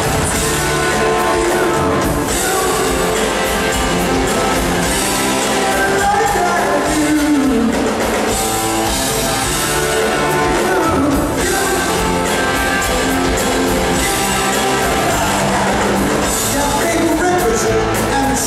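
Live rock band playing loudly and continuously: electric guitars, drums and organ, with a sung vocal line over them.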